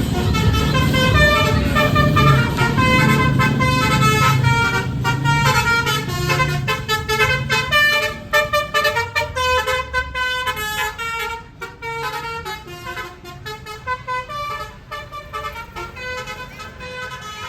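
A Basuri telolet multi-tone vehicle air horn plays a melody in quick stepped notes. A low engine rumble runs under it for the first several seconds, then drops away.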